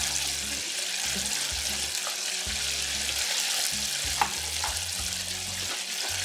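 Battered walleye frying in hot oil: a steady sizzle with a few sharp pops, the loudest about four seconds in.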